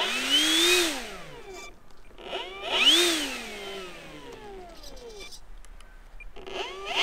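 Electric motor and propeller of an E-flite Draco RC plane, with a whine that revs up and back down twice, then starts to rise again near the end.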